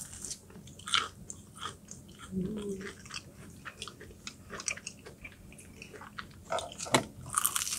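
Close-up crunching and chewing of McDonald's spicy chicken nuggets, in irregular crisp bites, with a brief low hum about two and a half seconds in.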